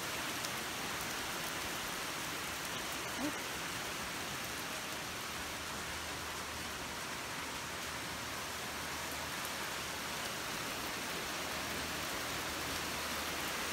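Heavy rain pouring down in a thunderstorm: a steady, even hiss.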